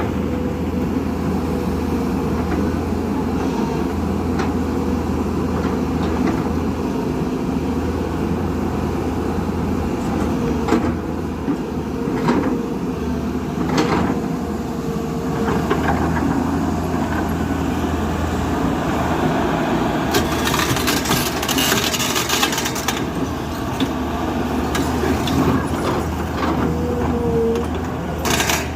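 Backhoe loader's diesel engine running steadily, with a few sharp clanks around the middle and a stretch of hissing about twenty seconds in.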